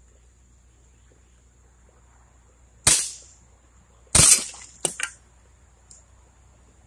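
Two CO2 pistol shots about a second apart; the second shatters a glass beer bottle, followed by a few small clinks of falling glass.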